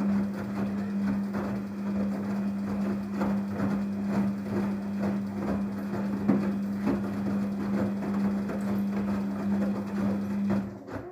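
Daewoo DWD-FT1013 washing machine running a wash, its motor humming steadily under regular soft knocks about twice a second as the drum turns. The sound cuts off abruptly near the end.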